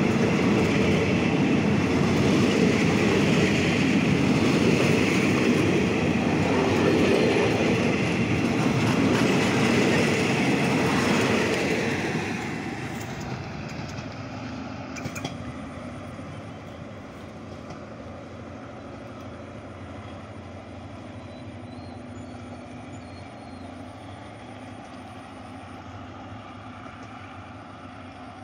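Passenger train carriages rolling past close by, steel wheels running on the rails. About halfway through the sound fades away as the end of the train pulls off down the line, leaving a low, steady rumble.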